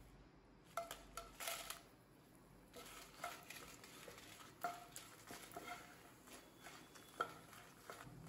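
Dried red chillies dropped into a non-stick pan with a little oil, then stirred and turned with a wooden spatula: light clicks and taps of the chillies and spatula against the pan, a quick cluster about a second in and scattered taps after.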